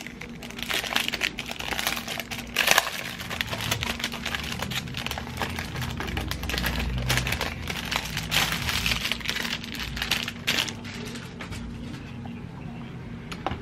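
Clear plastic wrapping crinkling and rustling as a new tablet case is unwrapped and handled, with scattered small clicks and taps.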